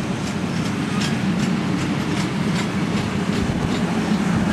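Union Pacific passenger cars rolling past on the track: a steady rumble of the wheels on the rails, with light regular clicks about three times a second.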